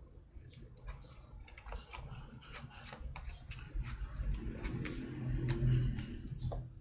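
Fluffy slime being squeezed and pulled out of a thin clear plastic tray, giving a string of irregular crisp clicks and crackles. A low hum swells in the background about two-thirds of the way through.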